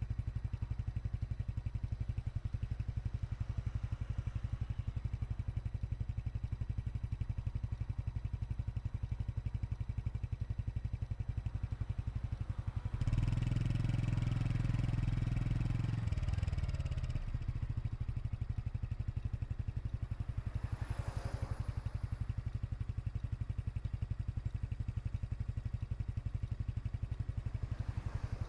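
Honda Super Cub 110 Pro's air-cooled single-cylinder engine idling with an even exhaust putter. About 13 seconds in the throttle is opened for roughly three seconds, then the engine settles back to idle.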